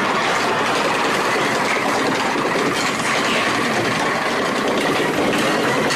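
An amusement-ride car running along its track through a tunnel, a steady loud rumble and rattle.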